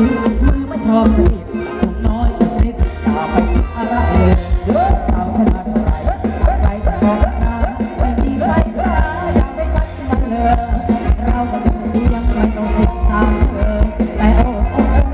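Live band playing upbeat Thai ramwong dance music, with a steady, heavy drum and bass beat under a gliding melody line.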